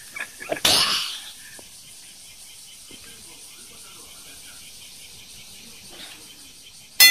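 A person coughs once, a short breathy burst about a second in, over faint room tone. Right at the end a bell-like ding strikes.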